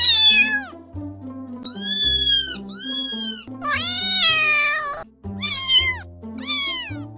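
A cat meowing six times, mostly falling or arched calls, the fourth drawn out longer than the rest, over background music with a low stepping bass line.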